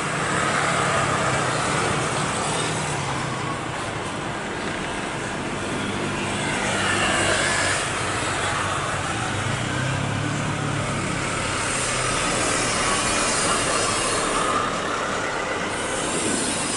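Steady rushing jet noise from a taxiing Airbus A330-300 with Rolls-Royce Trent 700 engines, its engines near idle, heard at a distance. Twice the sound swells and fades, as when a vehicle passes close by.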